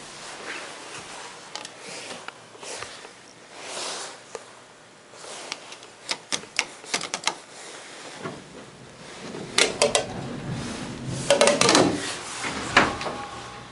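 Hydraulic elevator mechanisms: a run of sharp mechanical clicks and clacks, then from about eight seconds in a low hum starts under louder clusters of clunks and rattles.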